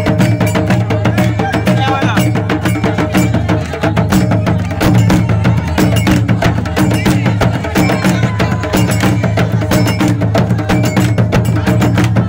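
Fast traditional West African percussion music: dense, rapid drum and wood-block-like strokes over a steady low bass, with voices in the mix.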